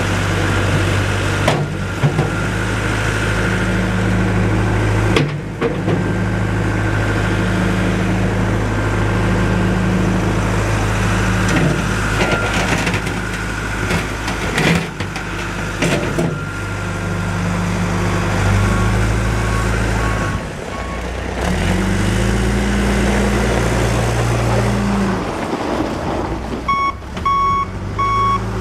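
John Deere 310SG backhoe loader's four-cylinder diesel engine running under working load, its revs rising and falling, with a few sharp knocks. Near the end its reversing alarm beeps about twice a second.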